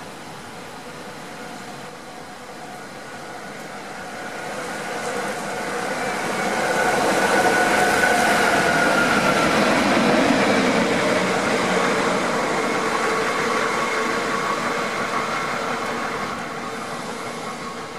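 Train passing through the station: the rumble of wheels on rail builds as it approaches, is loudest about 7 to 12 seconds in, then fades as it pulls away. A faint whine drops in pitch as the locomotive goes by.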